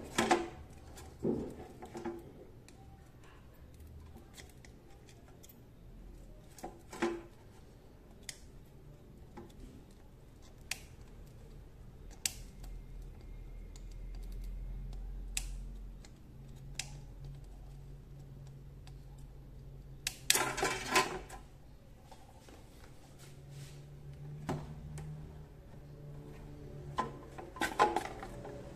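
Scattered light clicks and taps as a bread maker's control board and a soldering iron are handled while a relay is desoldered from the board, over a faint steady low hum. A louder flurry of clicks comes about two-thirds of the way through and another near the end.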